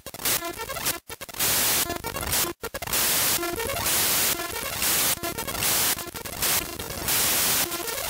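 Raw bytes of the Windows system file shell32.dll.mun played back as audio. Harsh digital static alternates every half second or so with buzzy, stepped tone patterns, broken twice by brief dropouts to silence in the first three seconds.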